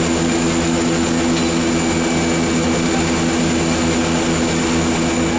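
De Havilland Canada DHC-6-300 Twin Otter's two Pratt & Whitney PT6A-27 turboprop engines and propellers droning steadily on final approach, heard from inside the cockpit: a low propeller hum with a thin, high turbine whine over it.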